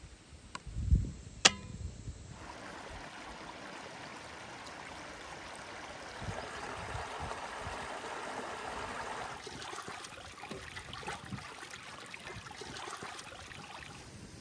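A low thump and a sharp click in the first two seconds. Then a mountain stream rushes over rocks as an even water noise. Past the middle this gives way to a wood campfire crackling with scattered pops.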